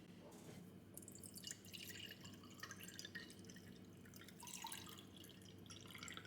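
Faint, irregular dripping and splashing of water, over a low steady hum.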